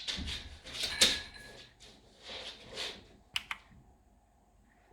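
Keys pressed one at a time on a White Shark Spartan TKL mechanical keyboard with red linear switches: a handful of separate keystrokes, the last two sharp clicks in quick succession, after which it goes quiet.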